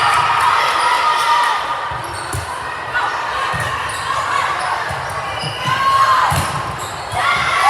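Volleyball being played in a gym: repeated dull thuds of the ball, with players' and spectators' voices echoing in the hall.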